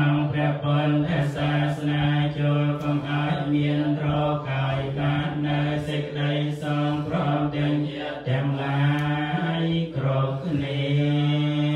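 Theravada Buddhist monks chanting in unison on a low, steady pitch, held in long phrases with two short breaks for breath in the latter part.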